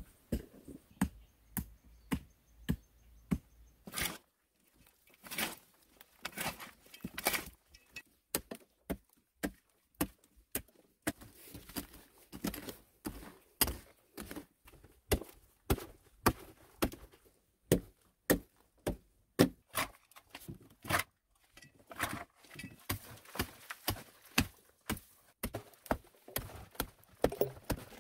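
Small pickaxe with a yellow handle striking into earth again and again while digging, each blow a sharp thunk with soil breaking loose, at an uneven pace of about one to two strikes a second, with a short pause about four seconds in.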